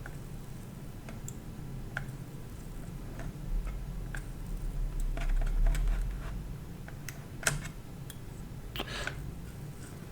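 Sparse light clicks and taps of soldering work on a circuit board, the tools and parts touching the PCB and its pin connectors. A short scrape comes near the end, and a low rumble runs for a few seconds in the middle.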